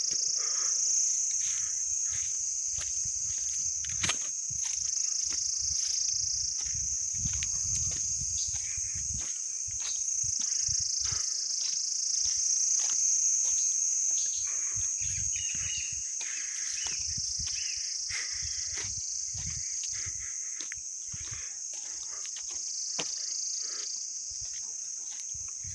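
A steady, high-pitched insect chorus that swells and fades a little, with low irregular thuds and rustles underneath.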